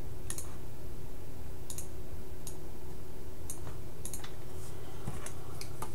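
Irregular sharp clicks of a computer mouse, selecting tools and drawing lines in whiteboard software, over a steady low hum.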